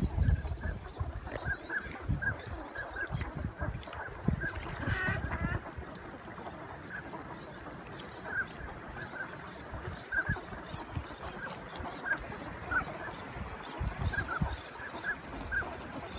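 A flock of wild ducks calling on the water: many short, high calls scattered through, with a denser flurry of calls about five seconds in. There are a few low thumps in the first seconds.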